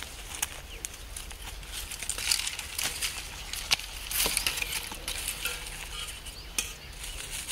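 Dry sticks and twigs being handled: light rustling with scattered sharp snaps and clicks, a few of them louder.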